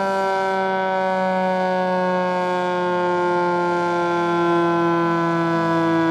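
Federal Signal 2T22A three-phase dual-tone outdoor warning siren sounding a two-tone chord that slowly falls in pitch, steady in loudness. The siren's top intake is blocked.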